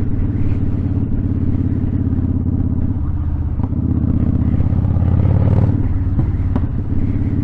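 Kawasaki VN900 V-twin cruiser with a Vance & Hines exhaust running on the road, getting louder as it pulls harder about four to five seconds in, then easing off shortly before six seconds.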